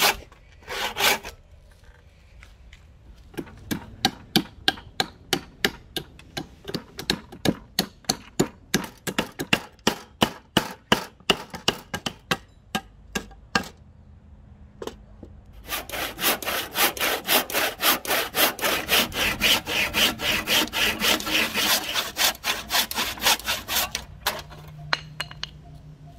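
Hand saw strokes in a hardwood axe-handle blank, then a long run of sharp knocks, about two to three a second, as a machete chops out the waste between saw kerfs. Near the end come fast, rhythmic cutting strokes on the wood.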